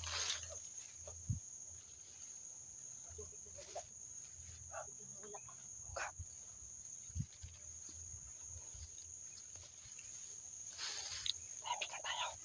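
Rustling of ferns and undergrowth as someone pushes through on foot, with scattered soft knocks and a steady high-pitched whine in the background. A few short animal-like sounds come near the end.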